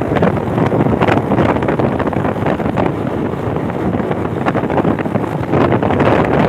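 Wind buffeting the microphone of a phone carried on a moving motorcycle: a loud, steady rush that gusts unevenly, with the motorcycle's running noise mixed underneath.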